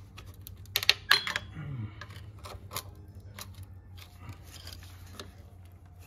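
Metal hand tools clicking and clinking against the transmission's neutral safety switch and its nut: a few sharp clicks about a second in, then lighter scattered taps, over a steady low hum.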